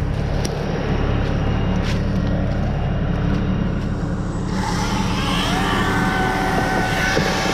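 A small engine runs low and steady. About four and a half seconds in, a chainsaw revs up to full throttle and holds a high, steady whine.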